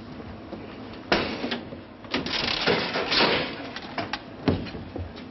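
Scanomat vending machine's door and mechanism worked by hand: a series of sharp clicks and knocks, with a stretch of mechanical clatter in the middle.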